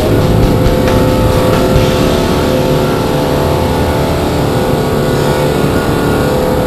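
Toyota Hilux pickup's engine pulling under load at steady revs as it climbs a steep sandy slope on tyre test, with tyre and body noise heard close up from the side of the vehicle.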